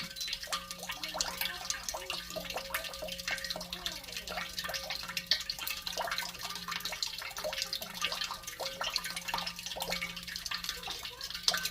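Tap water running and splashing in a sink during dishwashing, with many small drips and splashes and a faint steady hum underneath; the sound is passed through an ASMR audio filter.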